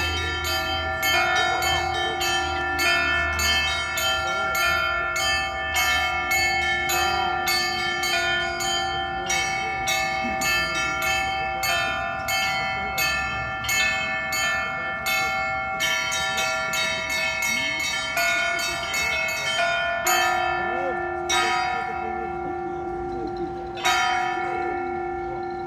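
Church bells pealing: several bells struck in a quick, overlapping clanging rhythm, each stroke left ringing. About 20 s in, the peal thins out to a few single strokes a couple of seconds apart.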